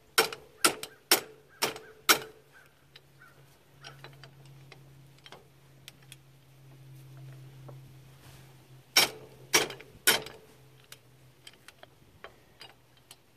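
Hammer striking a steel bolt to drive it out of a tractor's three-point lift arm, metal on metal. Five sharp strikes about half a second apart, then light clicks as the bolt is handled, then three more strikes a little past the middle.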